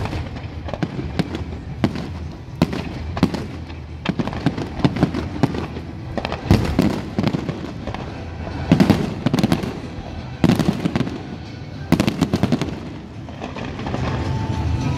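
Fireworks display: aerial shells bursting in loud bangs, with clusters of sharp crackling reports every couple of seconds.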